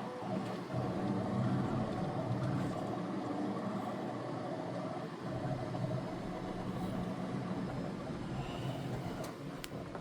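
3D printer running, its motors giving a steady mechanical whir of several shifting tones, with one sharp click near the end.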